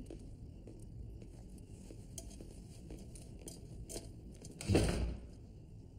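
Quiet room tone with faint rustling and scattered small clicks, and one louder rustle of movement about five seconds in.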